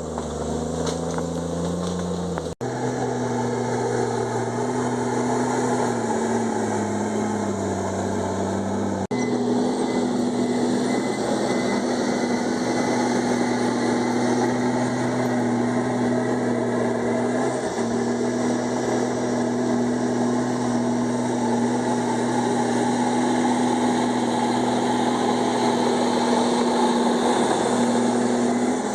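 Komatsu D51EX bulldozer's diesel engine running while working, its pitch shifting up and down over the first several seconds and then holding steady. The sound breaks off abruptly twice in the first ten seconds.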